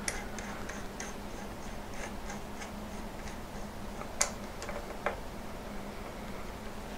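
Faint light ticking, a few ticks a second, from the knurled thumbwheel of an adjustable watch case-back wrench being turned by hand to set its jaws. About four and five seconds in there are two sharper clicks.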